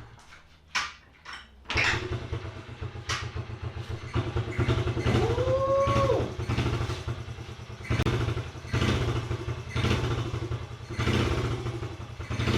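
Honda Z50R's small single-cylinder engine catching about two seconds in after a shot of starter fluid, then running rough with the throttle blipped up and down several times. There is a brief rising-and-falling tone about five seconds in.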